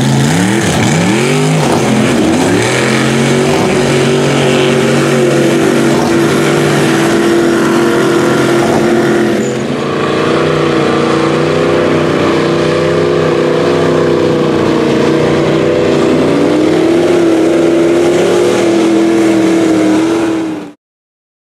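Turbocharged 5.3-litre LS V8 of a rat rod mud truck revving hard. It is blipped up and down several times at first, then held at high revs under full throttle through the mud. The revs dip briefly about ten seconds in and climb again, and the sound cuts off abruptly near the end.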